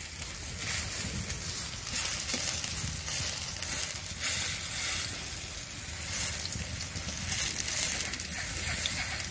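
Pumpkin-flower fritters sizzling steadily as they shallow-fry in hot oil in a wok, with a metal spatula scraping and turning them now and then.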